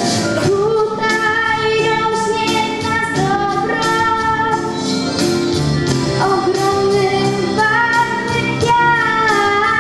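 A girl singing a song into a microphone over instrumental accompaniment, in long held notes that glide between pitches.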